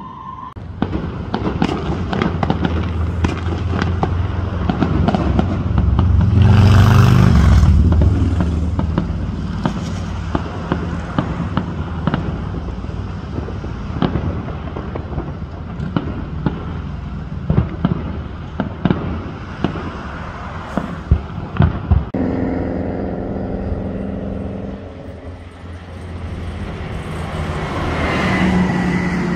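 Fireworks going off, with many sharp pops and crackles throughout and a louder, deeper boom about seven seconds in. A steady pitched hum sounds for a few seconds past the twenty-second mark.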